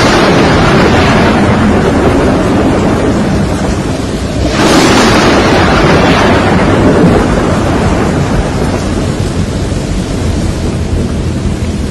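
Thunder crashing and rumbling over steady rain, with a second sudden crash about four and a half seconds in that slowly fades.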